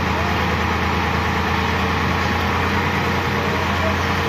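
Sonalika RX 50 tractor's diesel engine idling steadily while its tipping trolley stands raised, unloading soil.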